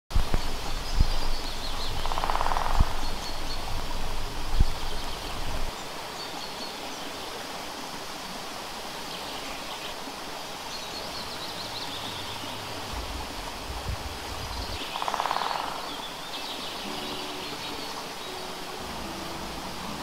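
Outdoor nature ambience: a steady rushing noise with birds chirping and trilling on and off. Low rumbles and thumps run through the first six seconds.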